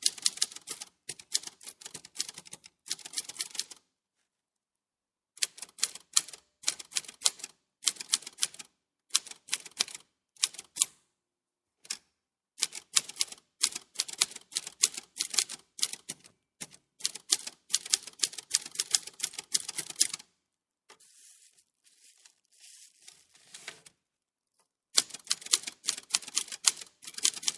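Typewriter keys striking in quick runs of clicks, broken by short pauses. About two-thirds of the way through there is a quiet stretch of a few seconds with only faint, softer mechanical sound before the typing starts again.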